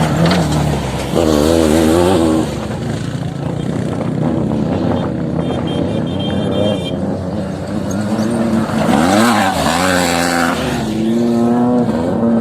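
Off-road vehicle engines running and revving, the pitch rising and falling repeatedly, with a sharp climb about nine to ten seconds in.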